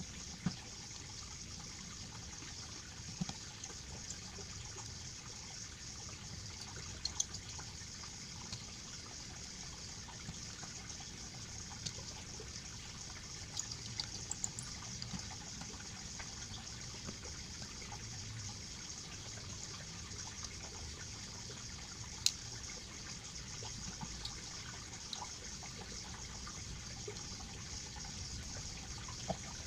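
Steady hiss with scattered faint clicks and ticks of a small precision screwdriver and hands working on a DSLR camera body; one sharper click about two-thirds of the way through.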